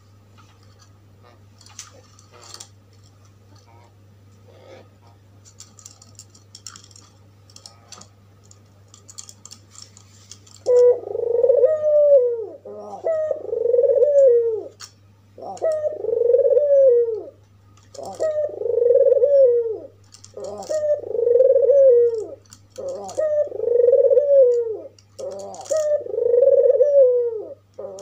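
White (albino) Barbary dove cooing: a run of about eight coos, each rising and then falling in pitch, one every second and a half to two seconds, starting about a third of the way in. Before that there are only faint scratchy ticks and a low steady hum.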